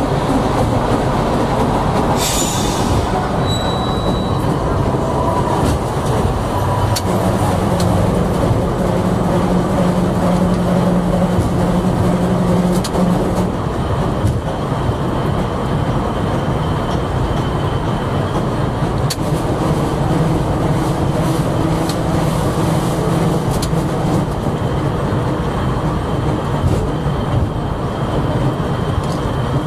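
Historic tram running along street track, heard from the cab: steady rolling noise with scattered clicks from the rails, and a low motor hum that comes and goes. A short burst of noise about two seconds in is followed by a brief high squeal.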